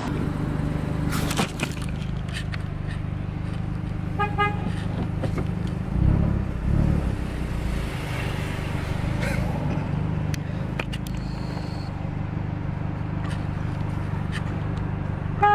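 A car horn honks once, briefly, about four seconds in, and again at the very end: drivers behind honking at a car sitting at a green light. Under it runs the steady low hum of the idling car, heard from inside the cabin, with a low thud around six seconds in.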